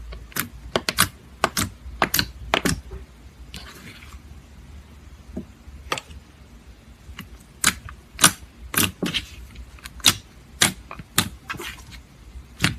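Slime being pressed and worked by hand, giving a run of sharp, irregular clicks and pops.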